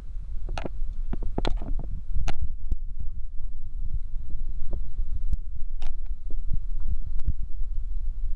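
Low, throbbing rumble of a car driving over a rough dirt track, with scattered knocks and rattles as it jolts over bumps.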